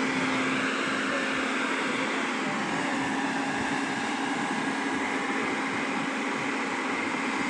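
Caterpillar hydraulic excavator running steadily, its engine and hydraulics giving a constant hum with a steady whining tone.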